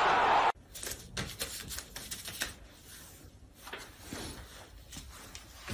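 A loud wash of football crowd noise from a TV broadcast cuts off about half a second in; then a crinkly plastic bag is handled, giving irregular crackles and clicks.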